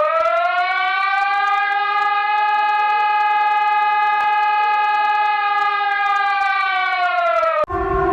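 Emergency alert siren: one steady pitched wail that rises at the start, holds level for about seven seconds, then falls away and breaks off near the end.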